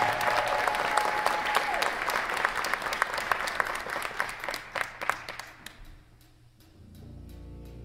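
Audience applauding, the clapping thinning to scattered claps and dying away about six seconds in. Near the end the wind ensemble starts a low, soft held chord.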